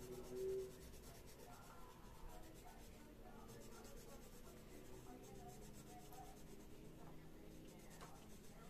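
Colored pencil scratching faintly back and forth on a coloring-book page as an area is shaded in. A brief tone sounds about half a second in.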